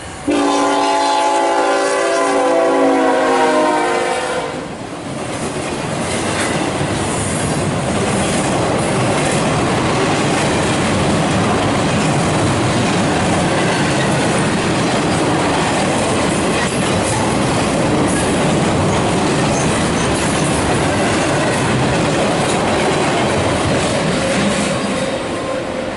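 A CSX freight locomotive sounds its horn, a steady multi-note chord that stops about four and a half seconds in. Then the double-stack freight train passes close by with a loud, steady rumble and clatter of wheels on rail.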